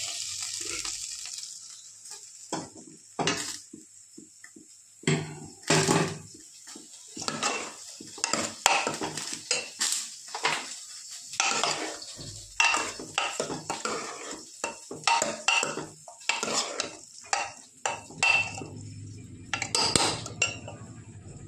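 Metal ladle stirring thick dal khichdi in an open aluminium pressure cooker, scraping and clinking irregularly against the pot's sides and bottom, some strikes with a short metallic ring. The clinks start about two and a half seconds in.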